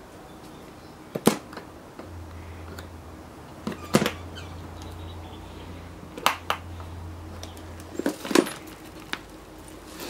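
Metal latches of an old vinyl-covered case clicking open, with scattered knocks as the case is handled on a metal bench. A low hum runs through the middle few seconds.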